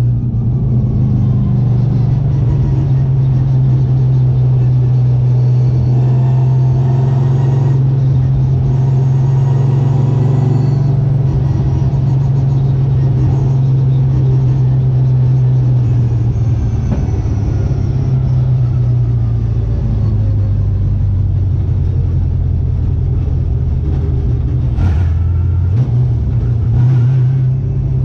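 Late model stock car's V8 engine heard from inside the cockpit, running at a steady pitch that drops lower past halfway and rises again near the end.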